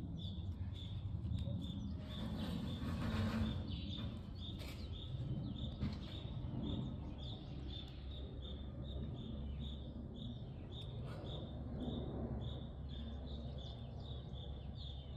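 Repeated short, high-pitched chirping at one steady pitch, about two chirps a second, over a low rumble, with a brief rustle about two seconds in.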